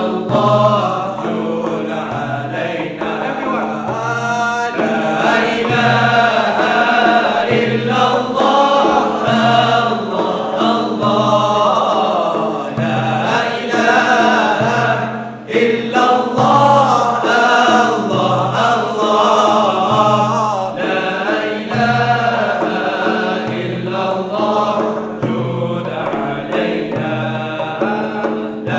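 All-male nasheed group singing a devotional chant together, with hand-held frame drums keeping a steady beat a little over once a second. The singing drops out for a moment about halfway through.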